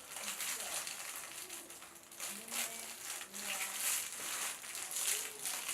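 Irregular rustling and crinkling throughout, with a few faint, short voice-like sounds.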